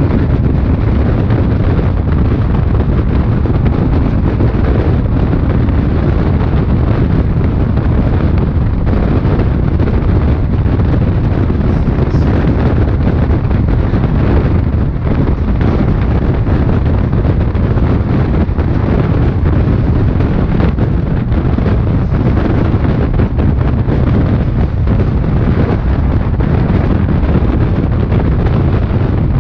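Loud, steady rush of wind and wheel-on-rail rumble from a fast-moving passenger train, heard at an open coach door with wind buffeting the microphone. Partway through, a goods train of covered wagons passes on the next track.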